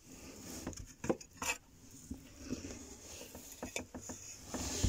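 Horsefield tortoise biting and chewing a dandelion leaf: small irregular crunches and clicks, with a louder cluster near the end.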